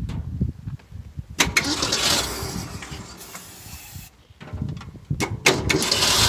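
1965 Ford fire truck engine cranked twice, each time catching with a sudden loud burst and running briefly before fading. It fires but will not keep running, a sign that it needs fuel.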